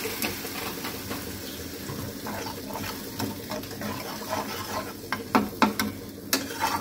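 Watery masala sizzling in a frying pan while a metal spatula stirs and scrapes through it, with a few sharp knocks of the spatula against the pan near the end.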